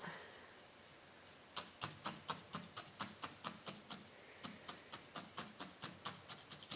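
Felting needle jabbing wool locks into a burlap-covered felting pad, felting them on: a steady run of short stabbing taps, about four a second, starting about a second and a half in.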